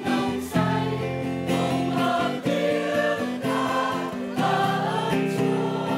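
Music: a choir singing a hymn with guitar accompaniment.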